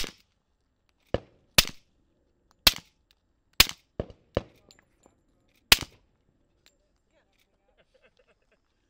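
Suppressed .45 ACP pistol fired through a SilencerCo Hybrid 46M suppressor: a string of about eight sharp shots, unevenly spaced over the first six seconds.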